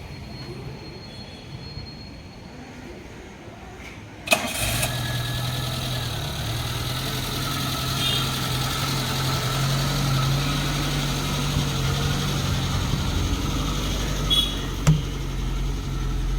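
A Maruti Suzuki Esteem's 1.3-litre four-cylinder petrol engine starts about four seconds in and settles into a steady idle through the exhaust. There are a couple of short, sharp sounds near the end.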